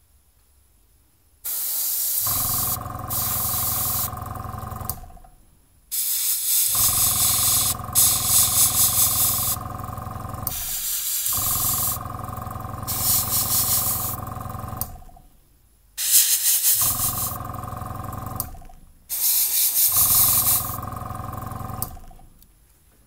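Airbrush spraying paint in five bursts of hissing air, each lasting a few seconds, with the small airbrush compressor's motor humming underneath and starting and stopping along with the spraying.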